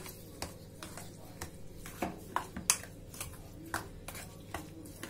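A spoon clinking against a mixing bowl at uneven intervals, about ten sharp clicks, while semolina batter with chopped vegetables is stirred with a little water into a thick paste.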